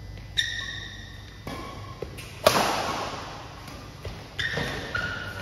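Badminton racquets striking a shuttlecock back and forth in a rally, about five sharp hits with a short ringing ping after some. The loudest hit comes about two and a half seconds in and echoes in the large hall.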